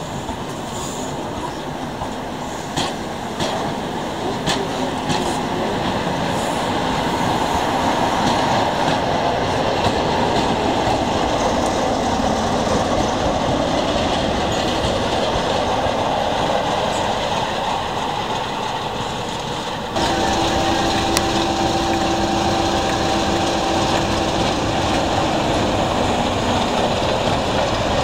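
A diesel-hauled passenger train rolls past at walking pace, its coach wheels clicking over the rail joints, the sound growing louder as the locomotive comes by. After a sudden cut, a Class 25 diesel locomotive, D7535, moves along with a steady engine hum.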